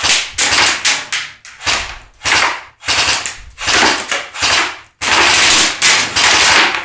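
A&K M60E4 MK43 airsoft electric machine gun firing on full auto in a string of short bursts, then a longer burst of nearly two seconds about five seconds in.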